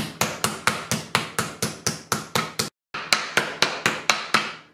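Meat mallet pounding a pork chop on a wooden cutting board, tenderizing and flattening it thin: a steady run of about four blows a second, broken by a short gap about two-thirds through, stopping just before the end.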